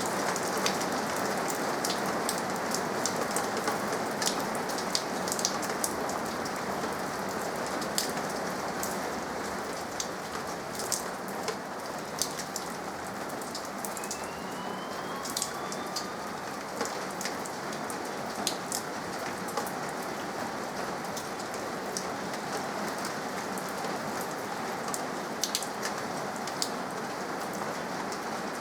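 Steady rainfall making an even hiss, with individual raindrops ticking sharply close by, more often in the first third.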